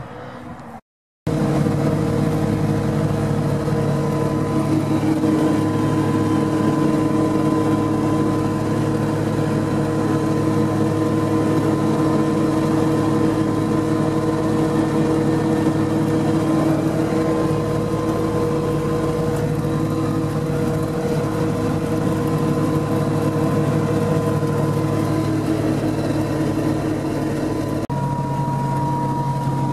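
Volvo Laplander (L3314) cross-country vehicle driving at steady road speed, heard inside the cab: a steady engine and drivetrain drone with a whine on top. Near the end the engine note drops to a lower pitch.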